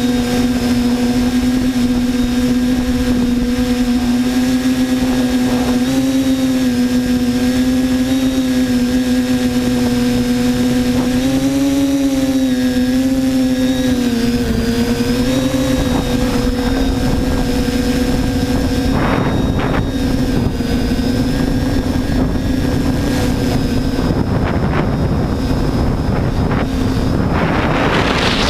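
TBS Discovery quadcopter's electric motors and propellers whining steadily, recorded from the onboard camera; the pitch wavers and dips a few times as the throttle changes. Near the end a rush of wind noise builds up.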